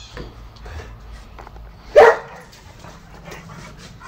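A dog barks once, loudly, about two seconds in.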